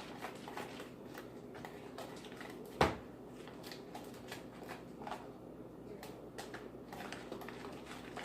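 Scattered light clicks and rustles of hands working in a kitchen, with one louder knock about three seconds in, over a steady low hum.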